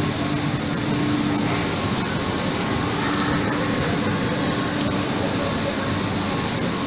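Steady running noise of textile-cutting-room machinery: an even rushing hiss with a low hum that fades in and out.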